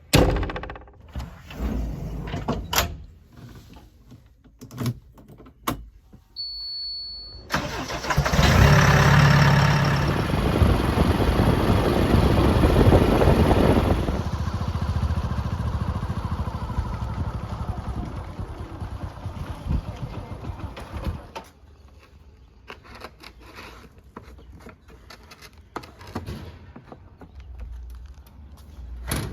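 Diesel engine of a heavy farm or construction machine, with scattered knocks at first. It then runs loud for several seconds about a quarter of the way in and dies away gradually over the next several seconds.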